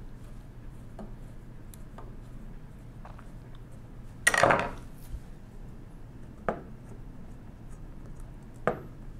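Metal tool and calculator parts being handled on a wooden table: a few light clicks, then a loud metallic clatter about four seconds in as a long screwdriver is set down, followed by two sharp knocks.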